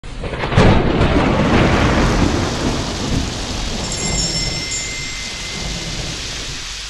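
Thunder rumbling over steady rain, the rumble heaviest about half a second in and slowly fading. Around four seconds in, a small hanging bell rings lightly.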